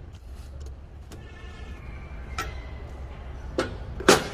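A key turns the jaw screw of a four-jaw lathe chuck in reverse, with faint metallic scraping, then a few sharp metal clicks and knocks as the jaw is worked free and handled. The loudest knock comes near the end.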